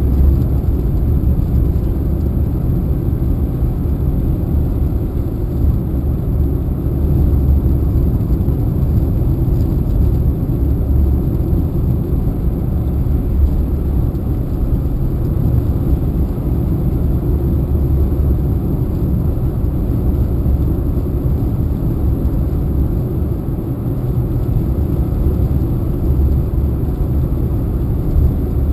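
Car cruising at road speed heard from inside the cabin: a steady low rumble of tyres and engine.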